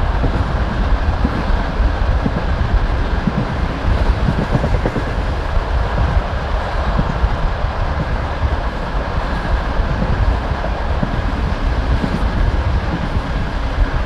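Passenger train carriage running along the track: a steady rumble of the wheels on the rails with a continuous clatter of wheel knocks over the rail joints.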